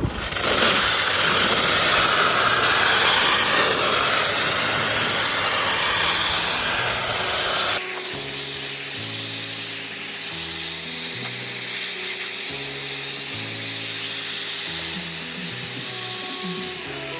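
Sandblaster blasting: a loud, even hiss with a steady high whistle that cuts off suddenly about eight seconds in. After that, background music with a stepping bass line plays over a fainter hiss.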